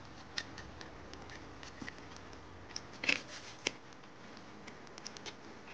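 Small clicks and ticks of a T-con circuit board being handled and fitted onto an LG TV panel, among its plastic connectors and flat cables. A louder cluster of clicks comes about three seconds in, a single sharp click just after, and a few light ticks near the end.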